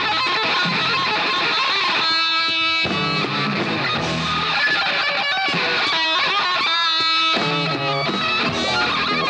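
Live electric guitar solo: quick melodic runs broken by two long held notes, one about two seconds in and another near seven seconds, the second with vibrato.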